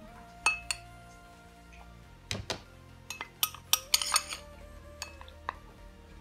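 Metal spoon clinking and tapping against a glass bowl and a plastic measuring jug as spoonfuls of cocoa powder are scooped and tipped in: a scatter of sharp clinks, loudest about two and a half seconds in. Soft background music with held notes plays underneath.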